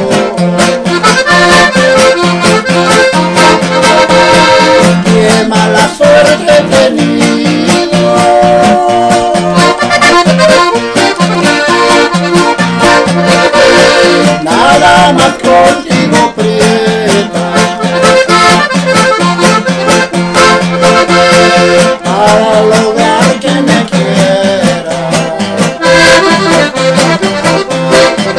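Piano accordion and acoustic guitar playing a ranchera together, the guitar strumming a steady rhythm under the accordion's melodic lines.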